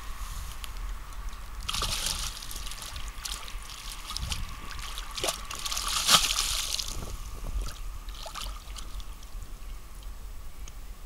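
Carp splashing at the water's surface: a sloshing splash about two seconds in, then a louder thrashing splash about six seconds in as the fish breaks the surface, with smaller splashes and drips between.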